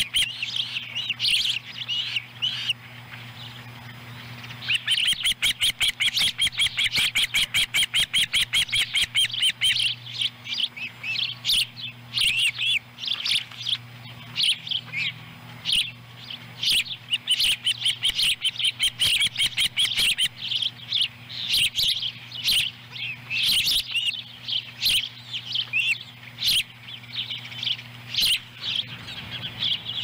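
Ospreys calling at the nest with high chirps: a fast, unbroken run of them from about five to ten seconds in, then separate chirps spaced out to the end.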